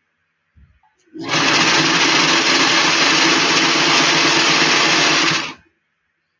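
Electric domestic sewing machine running a seam through the fabric of a cap lining, starting about a second in and running steadily for about four seconds before stopping. A faint knock comes just before it starts.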